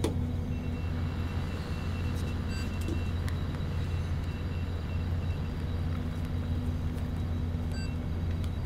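Fishing boat's engine running steadily, a constant low hum heard inside the wheelhouse, with a few faint clicks.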